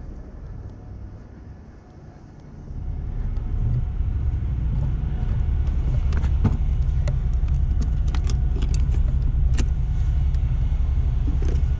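Tow truck's diesel engine idling, a steady low rumble that gets louder about three seconds in, with a few metallic clinks and jangles from gear being carried.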